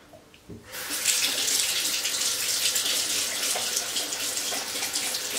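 A tap is turned on and water runs steadily into a bathroom sink, starting just under a second in after a small knock.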